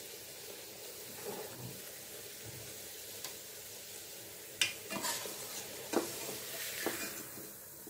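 A bhatura deep-frying in hot oil in a stainless steel pan: a steady sizzle. From a little past halfway, a few sharp knocks of a slotted spoon against the pan as the bhatura is lifted.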